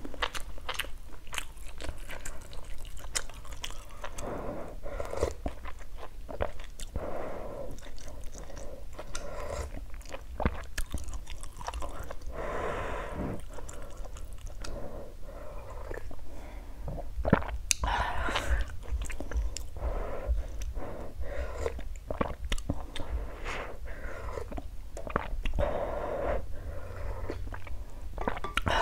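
Close-miked chewing and biting of chicken and noodle soup, with wet mouth sounds and crunching. Many short, sharp clicks run through it, along with a few longer swells of noise.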